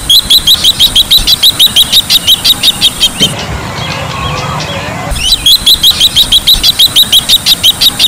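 Bronze-winged jacana calling: two bouts of rapid, high-pitched repeated notes, about seven a second, each bout lasting about three seconds, the second starting about five seconds in.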